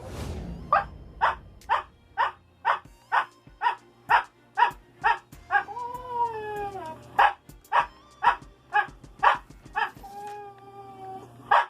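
Siberian husky barking a long run of short, evenly spaced barks, about two a second, counting out a number on cue; about six seconds in a drawn-out falling cry breaks the run. The count answers the letter S, nineteenth in the alphabet.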